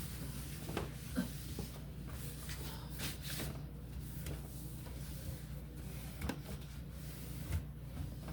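A cloth rubbing and wiping the inside of a refrigerator, with a few light knocks and clunks from handling its shelves or drawers, over a steady low hum.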